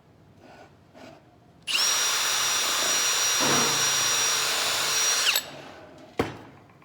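Power drill running at a steady speed for about three and a half seconds, its pitch sagging slightly just before it stops. A single sharp knock follows about six seconds in.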